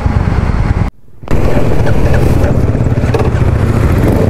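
Motorcycle engine running at low speed with a low, even pulsing beat as the bike rolls off slowly. The sound cuts out briefly about a second in.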